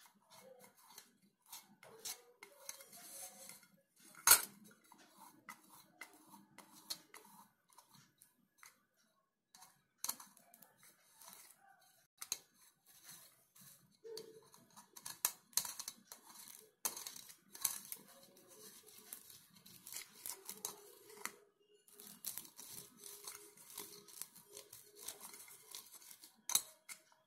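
Fingers rubbing butter around the inside of a stainless steel bowl: short, irregular rubbing and scraping strokes against the metal, with one sharp click about four seconds in.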